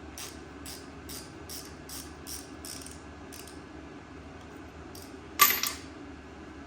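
A run of light, evenly spaced metallic clicks, about two or three a second, for the first three seconds or so, then one loud, sharp metallic clack with a short ring about five seconds in.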